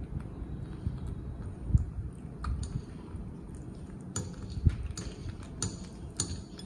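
A fork and chopsticks clicking and scraping against a plate as fried egg is cut up, a run of sharp clicks in the second half, with a couple of dull thumps.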